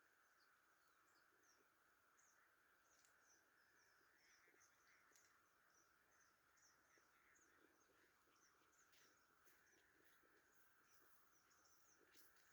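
Near silence: faint outdoor ambience with small birds chirping over and over and a faint steady high hiss.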